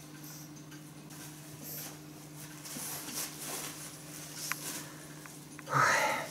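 A pug puppy tugging at a disposable puppy pad with its teeth: soft rustling and crinkling of the plastic-backed pad with a few small clicks, then a louder crinkle near the end as the pad is yanked up.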